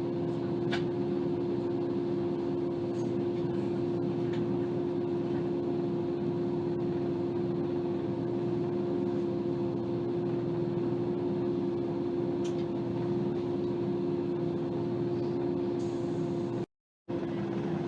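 Steady mechanical hum of a train, with a few faint clicks; the sound cuts out for a moment near the end.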